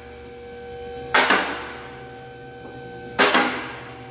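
Short whooshing bursts of noise come at a steady pace, about one every two seconds, two inside this stretch. Each one hits sharply with a double peak and fades over about half a second. A faint steady whine runs underneath.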